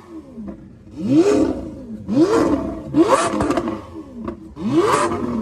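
Lamborghini Aventador's V12 engine blipped by free revs: four sharp rises and falls in pitch about a second apart, with a few crackles on the overrun after the third.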